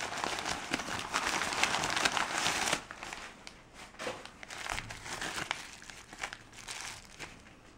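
Printed paper packing being crumpled and pulled apart by hand: dense, loud crinkling for about the first three seconds, then quieter, patchy crinkling and rustling.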